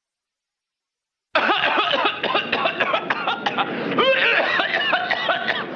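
Cartoon concert audience: many voices at once coughing and laughing, starting abruptly about a second and a half in after silence.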